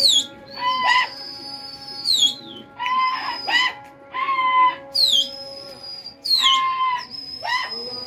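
Pigeon fliers' loud whistles: about five sharp whistles, each swooping down and holding a high note, one every second or two. Lower shouted calls come in between. The whistling and calling are aimed at the flock circling overhead.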